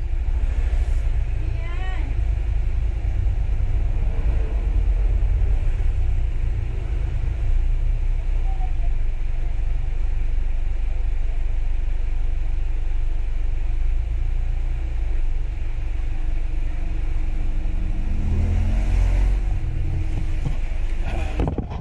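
Steady low rumble, with a short rising engine-like tone near the end.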